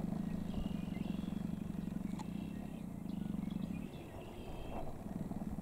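A steady low hum with a fast, even pulse, easing off for about a second near the end, with faint short high calls above it.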